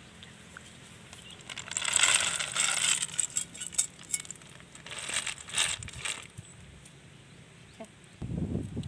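Boiled snails in their shells clattering as they are tipped from a metal pot into a plastic basket, in two pours a few seconds apart. A low rumble near the end.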